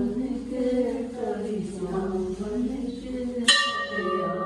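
Devotional singing with long, gliding held notes, and a temple bell struck once about three and a half seconds in, ringing on afterwards.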